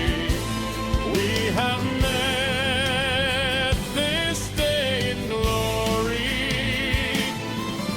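AI-arranged pop song playing: a lead melody with vibrato on its held notes over instrumental backing and drums.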